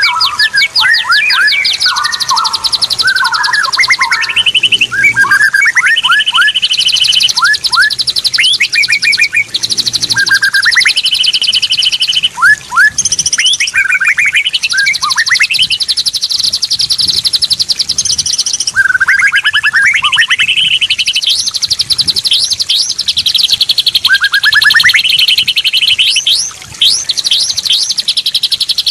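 Cucak rawa (straw-headed bulbul) singing loudly and almost without pause: short rising whistled phrases over fast, high, rattling trills, with two brief breaks.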